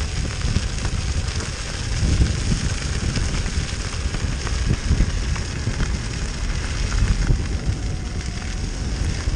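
Tyres of an electric off-road board crackling over a gravel path, with heavy wind rumble on the microphone as it rides along.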